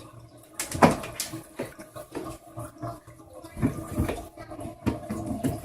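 Water sloshing and splashing in a small washing machine tub as clothes are rinsed, with irregular soft knocks and clunks.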